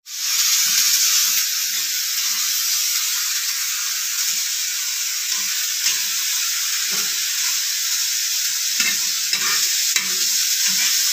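Sliced vegetables sizzling steadily in hot oil in a wok while a metal spatula stirs and tosses them, with irregular scrapes and light knocks of the spatula against the pan.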